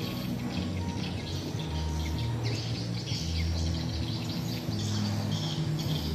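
Birds chirping in many quick short calls, over a low drone that shifts in pitch every second or so.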